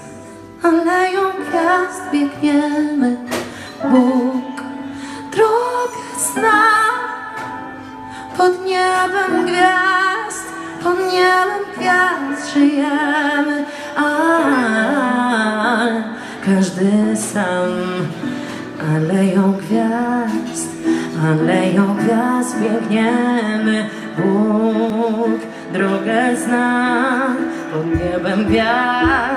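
Pop song: a woman sings with vibrato over instrumental backing.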